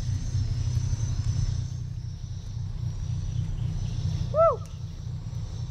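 A small boat engine running steadily with a low, evenly pulsing rumble. About four and a half seconds in, one short call rises and falls in pitch over it.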